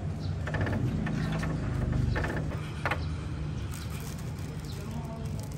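A motor vehicle's engine running with a steady low hum, with short crackles of plastic packaging being handled over it.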